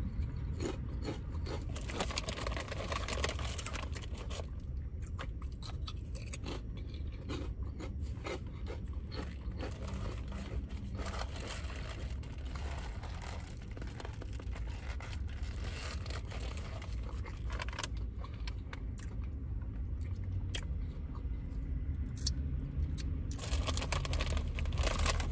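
Close-miked eating: chewing with many short, crisp crunches, over a low steady hum.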